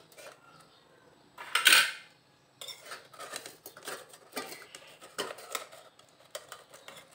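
Steel spoon scraping and clinking against a stainless-steel plate as pieces of set Mysore pak are pried loose. The loudest scrape comes about a second and a half in, followed by a run of small clicks and scrapes.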